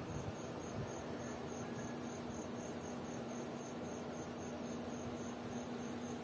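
A cricket chirping steadily, a high thin pulse about four times a second, over a low steady hum and hiss, with a soft rustle of bedding near the start.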